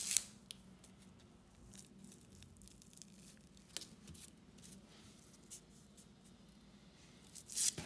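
Paper of a tobacco-filled slim cigarette tube being torn open by hand: a short rip at the start and another near the end, with faint crackling of handling between.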